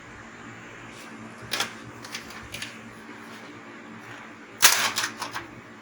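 Sharp clicks and light clatter of small hard parts and tools being handled: a few separate clicks in the first half, then a louder burst of several clicks near the end.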